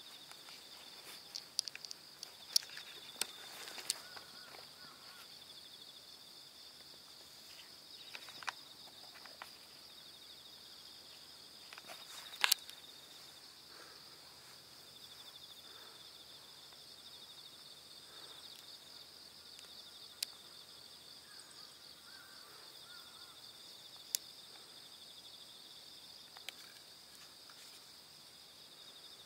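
A steady, high chorus of insects, with a few scattered sharp clicks and rustles, the loudest about halfway through.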